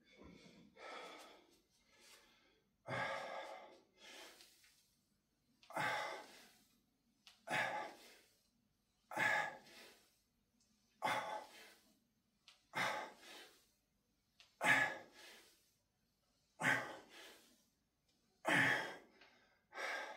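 A man breathing hard through a set of barbell back squats: a sharp, forceful breath about every two seconds, each followed by a quieter one.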